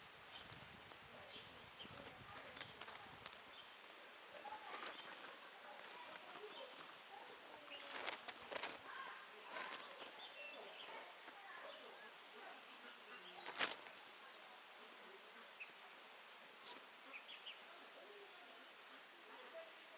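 Insect's steady high-pitched buzz or trill, with scattered faint ticks and rustles and one sharp click about two-thirds of the way through. Low wind rumble on the microphone dies away about three seconds in.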